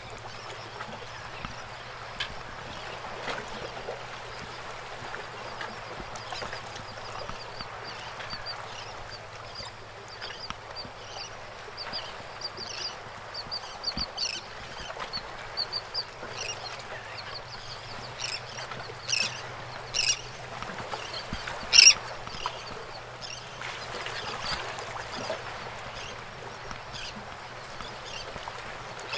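Water lapping and paddle splashes around a kayak, with birds calling over it. There is a run of quick, high, short calls through the middle, and a few louder sharp sounds about two-thirds of the way through.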